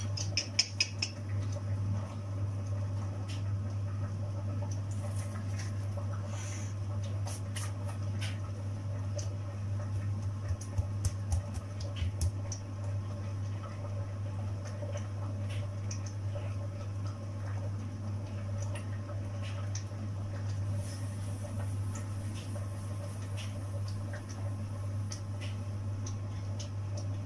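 Hands working bread dough and dipping it in a plate of breadcrumbs: scattered light taps, clicks and scratchy rustles of the plate, crumbs and dough. A cluster of soft knocks comes about ten to twelve seconds in. All of it sits over a steady low hum.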